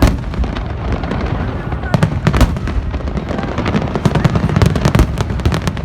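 Fireworks finale barrage: aerial shells bursting in rapid, overlapping succession, a dense run of booms and crackles with no pause.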